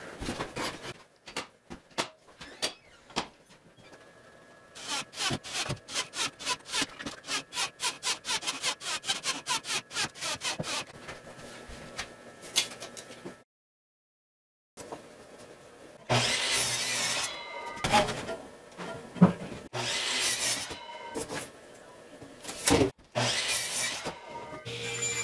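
A pine frame being handled with scattered knocks, then a run of quick, even clacks, about five a second for several seconds. Later a power miter saw cuts pine boards in several loud stretches.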